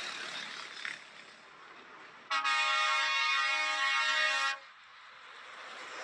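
Truck air horn sounding one long steady blast of a little over two seconds, starting about two seconds in and stopping abruptly, over passing highway traffic.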